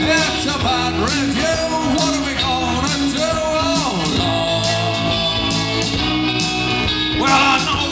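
Live rock band playing a song on electric guitar and bass guitar, with notes sliding up and down in pitch and a louder swell near the end.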